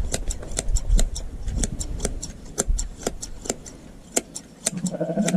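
Hand shears snipping through a sheep's fleece: quick, irregular metal clicks of the blades closing, about three or four a second.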